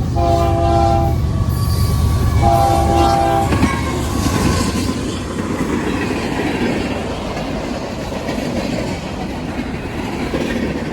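Train horn sounding a multi-note chord in two blasts of about a second each, over the low rumble of the locomotive. The train then keeps running past with steady rail noise.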